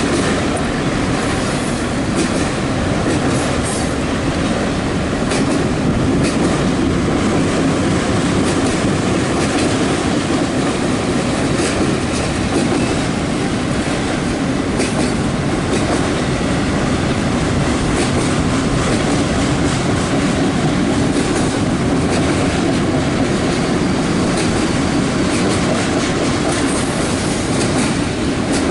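An empty autorack freight train rolling steadily past close by: a continuous rumble of steel wheels on rail, with irregular clicks and clacks throughout.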